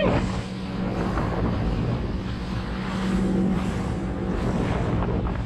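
A small trailer boat's engine running steadily at speed while the boat runs across open water, with the rush of wind on the microphone and water along the hull.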